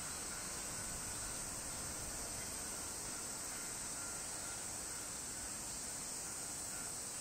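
Steady high-pitched insect chorus with no breaks.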